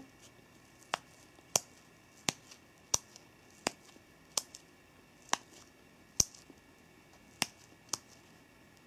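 A handmade sponge squishy shaped like a senbei rice cracker, pressed by thumbs over and over, giving a sharp click or snap with each press, about ten in all at uneven intervals: its built-in 'pakipaki' snapping effect.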